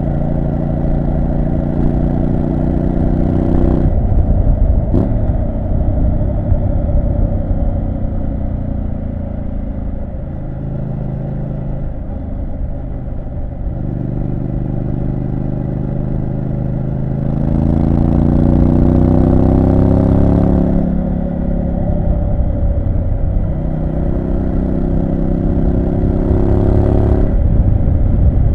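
Triumph Street Scrambler 900's parallel-twin engine under way, its note climbing in pitch as the bike accelerates in the second half and dropping sharply at gear changes, twice; a short click about five seconds in.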